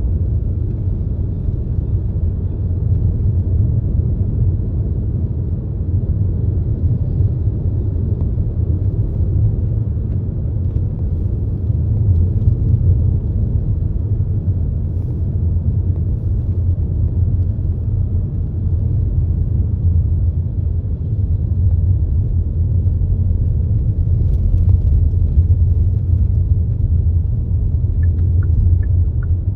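Car driving along a road: a steady low rumble of tyres and engine. Near the end comes a run of short, high beeps, about two a second.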